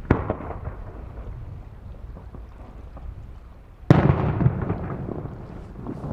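Fireworks shells bursting overhead: a sharp bang at the start with a crackling tail, then a louder bang near four seconds in, followed by crackle and rumble. Low wind noise on the microphone runs underneath.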